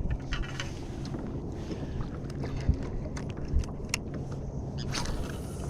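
Wind on the microphone and water around a fishing kayak, a steady low rumble, with scattered light clicks and taps throughout.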